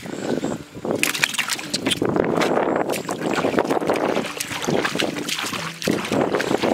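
Water splashing and sloshing, with many short, sharp splashes.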